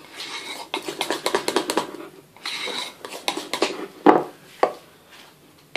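A spatula scraping and clicking against a bowl while thick buttercream icing is stirred, with a few sharp knocks of the utensil on the bowl about four seconds in and again near the end.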